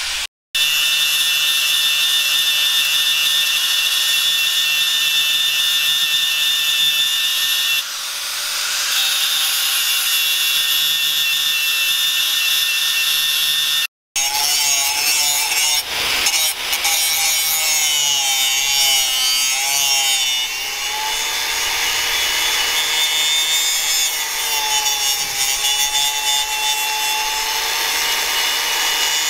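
Electric angle grinder with an abrasive sanding disc grinding the steel of a knife's guard and blade. Its whine wavers in pitch as the disc is pressed against the metal. The sound breaks off very briefly twice, about half a second in and about halfway through.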